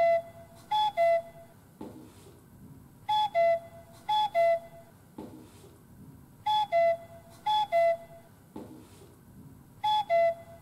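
Repeating whistle-like jingle sound effect: four pure notes, high-low, high-low, played four times about every three and a half seconds, each group followed by a soft thud.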